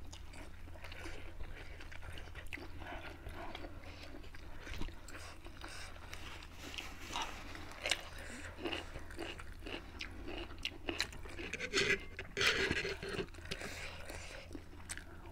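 Close-up mouth sounds of people eating: chewing, lip smacks and small crunches, with a few louder bursts about eight and twelve seconds in.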